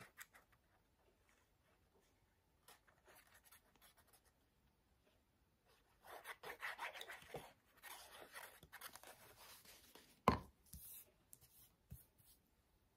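Faint scratching and rubbing of a liquid glue bottle's nozzle drawn across card, with paper rustling. About ten seconds in comes one sharp knock as the bottle is set down on the wooden tabletop.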